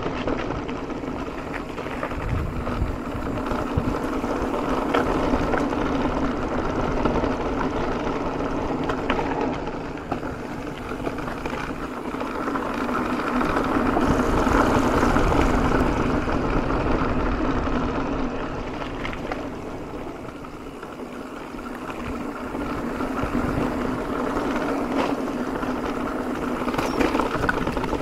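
Mountain bike rolling downhill on a concrete trail, heard from a handlebar-mounted camera: a steady hum of tyres and rushing air that rises and falls with speed, loudest about halfway through, with occasional small clicks and rattles from the bike.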